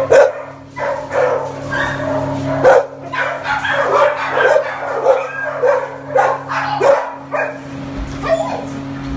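Many dogs in a large breeding kennel barking and yipping over one another, with a steady low hum underneath.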